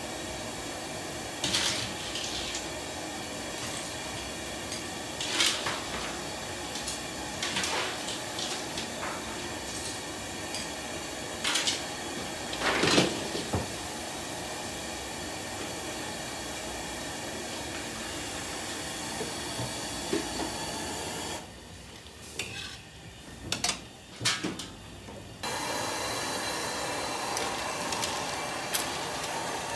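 Kitchen work sounds: dishes and utensils clink and knock now and then over a steady hiss of steam and cooking. After a quieter stretch near the end, a louder steady hiss comes in.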